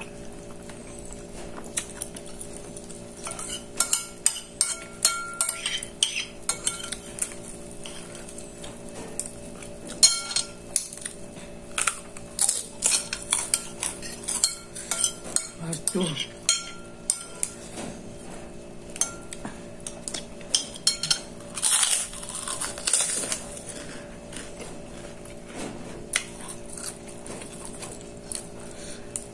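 Metal spoon clinking and scraping against a plate while eating, in many short, irregular clicks, over a steady low hum.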